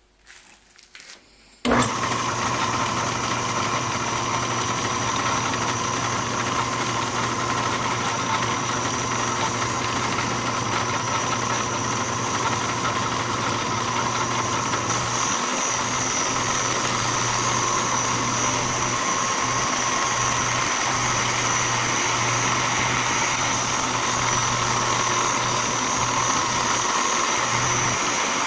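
A small belt-driven bench metal lathe switches on about two seconds in and then runs steadily, with a motor hum and a high whine, spinning a drill-rod workpiece for thread cutting.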